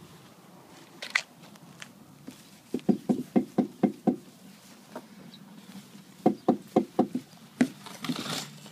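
Rapid metallic clunks from a 2001 Vauxhall Corsa's front end, in two runs of about five or six knocks a second with a few single knocks between. It is the owner's unexplained clunk, which came back after the steering rack was replaced.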